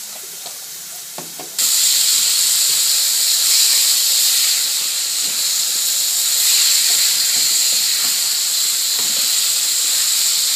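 Strips of beef liver frying in very hot oil in an aluminium frying pan while being stirred: a loud, steady sizzle that starts abruptly about a second and a half in. Before it there are only a few faint knocks.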